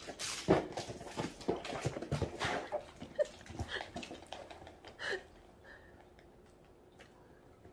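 Kitten scrambling, pouncing and rolling on a floor mat while playing with a feather wand toy: a quick run of paw thumps and scuffles over about five seconds, with a couple of short squeaks among them.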